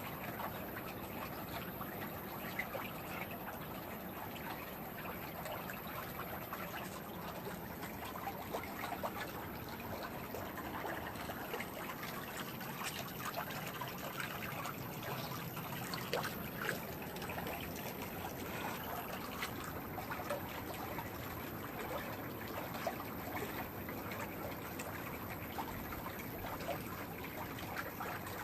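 Swimming pool water trickling and lapping: a steady wash of water noise dotted with many small splashy ticks.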